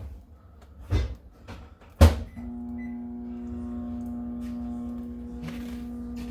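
Two knocks, the second a sharp bang about two seconds in, followed by a steady humming drone that starts just after the bang and holds steady.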